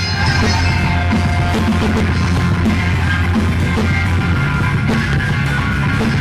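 Live band music played through a large PA sound system: electric guitars over a strong, steady bass line.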